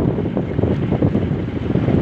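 Wind buffeting the microphone on a boat moving across the lake, a steady rumbling gust noise with water washing beneath it.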